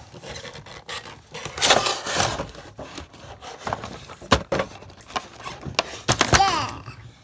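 Cardboard toy box and its plastic packaging being opened and handled: rubbing and scraping of cardboard, with a few sharp clicks and a short squeak near the end.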